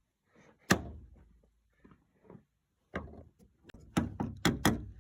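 Sharp knocks and clicks of a hand tool working on a bolt inside a pickup truck door: one about a second in, then several close together near the end.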